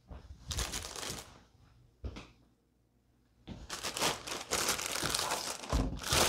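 Clear plastic bag crinkling as it is handled and pulled off a boxed amplifier. Short bursts come in the first second, then a pause, then steady crinkling from about three and a half seconds in.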